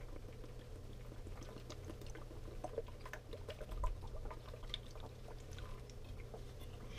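A man drinking water from a plastic bottle: faint gulps and swallows with small clicks, over a steady low hum.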